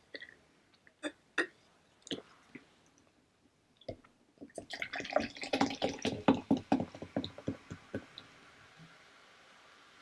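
Cherry Sprite poured from its bottle into a cup. A few light clicks and knocks come first, then about three seconds of rapid glugging from about halfway, then the soft hiss of the fresh soda fizzing.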